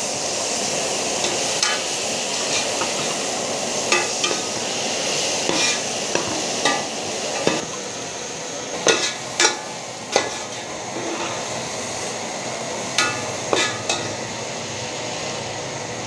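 Chopped onions, tomatoes and green chillies sizzling in oil in a metal pot. A metal spoon stirs and scrapes through them, knocking sharply against the pot many times.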